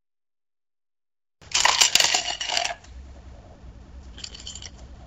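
Coins clattering and jingling together, a loud burst of about a second with bright metallic ringing after a silent start, followed by a smaller rattle of coins about four seconds in.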